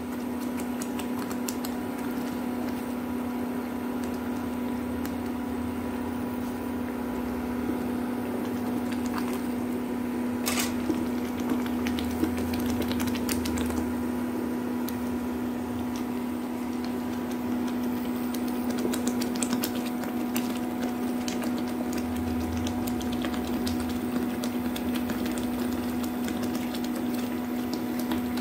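Wooden spatula stirring thick sarson ka saag in a metal pan, with scattered light clicks and taps, over a steady low electrical hum.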